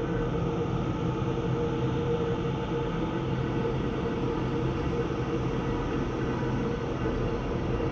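Atmospheric drone sound effect: a dense, steady low rumble with faint held tones above it. It does not change in level or pitch.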